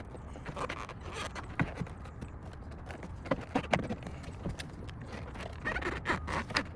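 Irregular clicks, taps and light knocks of a tow mirror and its wiring harness being worked into place against the truck door, with clusters of sharper knocks in the middle and near the end, over a low steady rumble.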